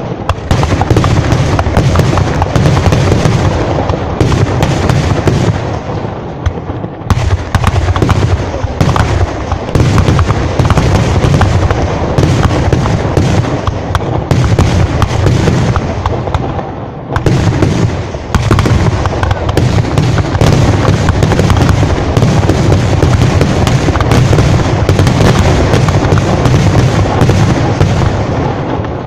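Fireworks going off in a dense, continuous barrage of bangs and cracks, with two brief lulls about seven and seventeen seconds in.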